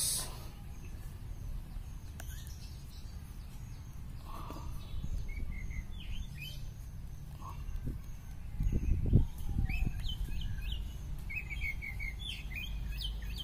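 Small birds chirping in short, quick notes, busiest in the last few seconds, over a steady low rumble of outdoor noise. About nine seconds in there is a brief louder low rumble.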